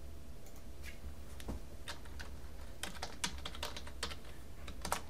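Typing on a computer keyboard: scattered key clicks, most of them in the second half.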